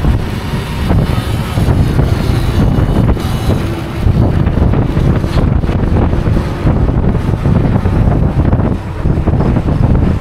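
Wind buffeting the microphone of a camera carried along on a moving electric unicycle: a loud, unsteady low rumble of rushing air with road noise underneath.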